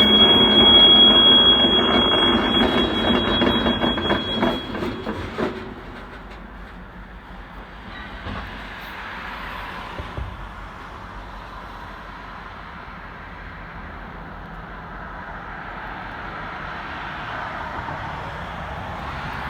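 Freight train rolling past on the rails with a steady high-pitched wheel squeal. About five and a half seconds in, the noise drops away sharply, leaving a quieter steady rumble as the train moves off.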